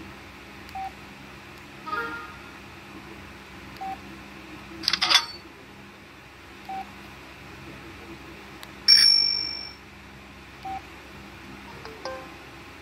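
Samsung Contour 2 flip phone playing a built-in ringtone through its small speaker: short beeps about every three seconds, brief chimes, a louder clatter of notes about five seconds in, and a bright bell-like ding near nine seconds that rings out for about a second.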